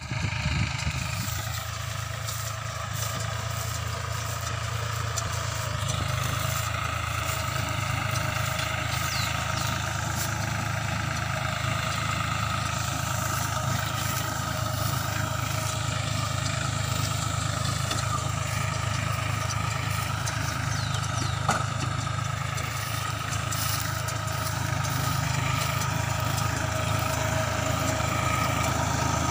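New Holland 4710 tractor's three-cylinder diesel engine running steadily under load while driving a small round baler picking up straw, the baler's machinery running behind it. One sharp click comes about two-thirds of the way through, and the sound grows slightly louder near the end as the tractor comes closer.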